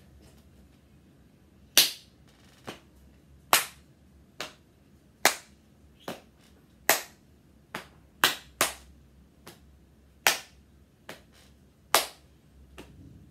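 A child clapping a steady rhythm by hand: a sharp, loud clap about every second and three quarters, with softer claps in between.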